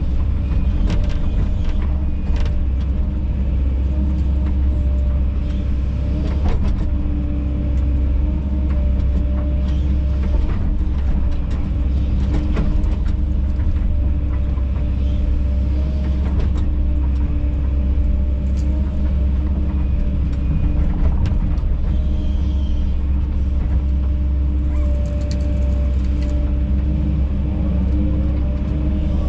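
Kobelco SK210LC-10 excavator's diesel engine running steadily under working load, a constant low drone with a few faint knocks scattered through it.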